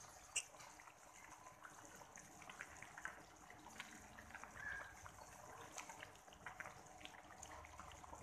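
Faint sloshing of soup as a spatula stirs it in a pan, with small scattered clicks of the spatula against the pan and one sharper click just after the start.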